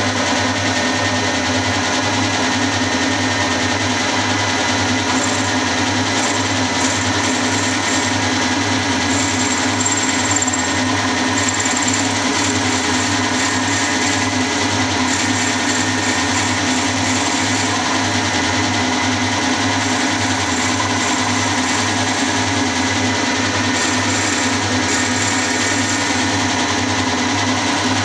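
Small milling machine running, its end mill cutting a 3/8 in bore into a metal tailstock casting: a steady mechanical whir with an even low pulse, and a thin high whine that comes and goes as the cutter bites.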